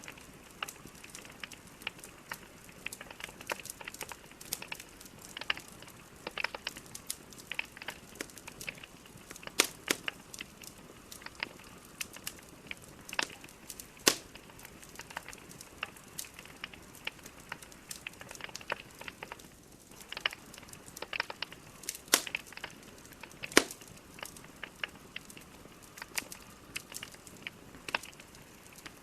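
Wood fire crackling, with irregular pops and snaps from burning logs over a soft hiss; a few sharper cracks stand out.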